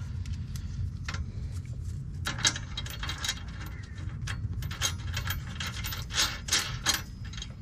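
Irregular clinks, taps and scrapes of metal sway-bar parts being handled and pushed into place by hand, over a steady low hum.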